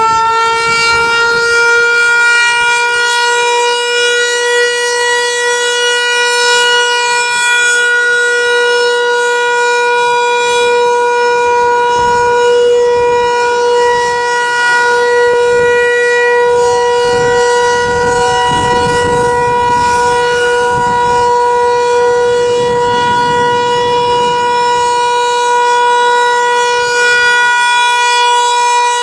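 Federal Signal 508-128 outdoor warning siren sounding its steady alert tone: loud, and still rising slightly in pitch for the first second before holding one steady pitch. This steady, non-wailing tone is the alert signal, sounded here in a monthly test.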